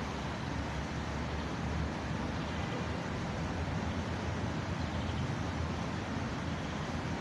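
City traffic ambience: a steady wash of road noise with a low rumble, and no single vehicle or event standing out.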